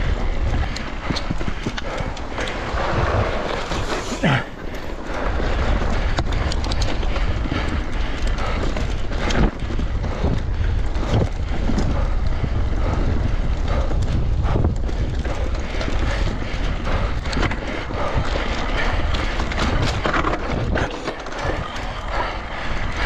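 Electric mountain bike ridden over a bumpy trail: a constant low tyre rumble with many small knocks and rattles from the bike.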